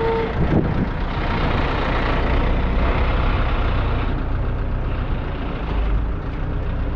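Heavy truck diesel engine running steadily with a deep low rumble.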